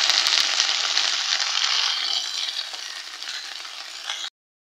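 Washed mustard greens sizzling loudly in hot mustard oil in a kadai, with a few light clicks at the start. The sizzle dies down over the second half as the wet leaves cool the oil, then cuts off abruptly near the end.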